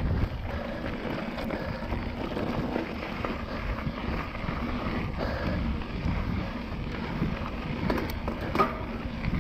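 Mountain bike rolling down a loose gravel trail, its tyres crunching over the gravel, with wind rumbling on the microphone. A few sharp knocks and rattles come near the end.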